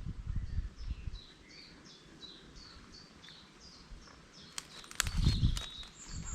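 A songbird singing a run of about a dozen short, high, falling notes, with low wind rumble on the microphone and a few clicks and rustles near the end.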